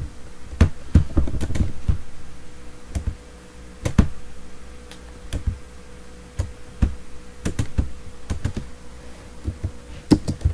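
Computer keyboard typing: irregular keystrokes, some in quick runs and some spaced apart, as an IP address and subnet mask are entered on a command line.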